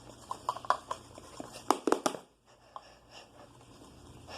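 Handling noise of small objects on a table: light clicks and taps, with a few louder knocks about two seconds in, then a brief lull.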